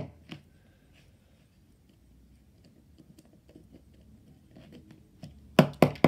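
LEGO brick puzzle box being tipped and jiggled in the hand to work a black stick out of it: faint small plastic clicks and rattles, then two sharp plastic knocks near the end.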